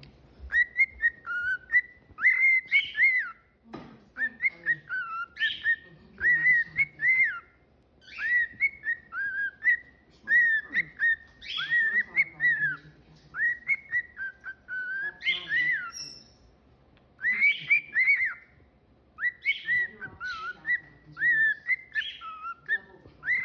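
Cockatiel whistling a tune, repeating phrases of short arching notes a few seconds long with brief pauses between them. A single sharp click about four seconds in.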